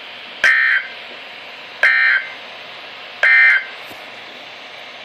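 Emergency Alert System digital data tones: three short, identical buzzing bursts about 1.4 seconds apart over a steady background hiss. Three short bursts at the close of an alert are the end-of-message code that ends the broadcast warning.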